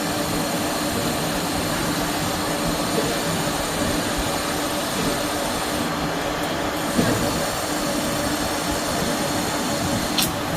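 Milling machine running steadily: a constant rushing noise with a steady hum, broken by a short knock about seven seconds in and a brief sharp tick near the end.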